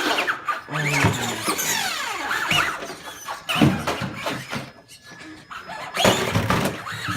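RC cars' motors whining as they speed up and slow down, the pitch sliding up and down, with tyre and chassis noise. There are louder bursts of noise at the start and about six seconds in.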